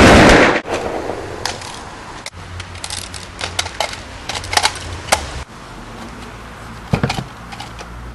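A burst of automatic gunfire sound effect that cuts off about half a second in, followed by scattered light clicks and knocks over a low background hum.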